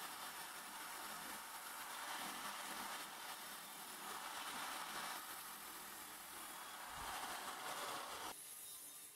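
Electric drill spinning a small abrasive wheel against the steel of an old ammunition box, a steady scouring hiss that swells and eases as the wheel is pressed on and moved. It stops abruptly about eight seconds in.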